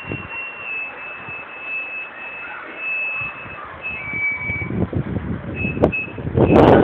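Vertical-axis windmill squeaking in strong gusty wind: a thin, high whistling tone that holds and steps slightly in pitch, like a Japanese flute. Wind rumbles on the microphone in gusts, loudest near the end.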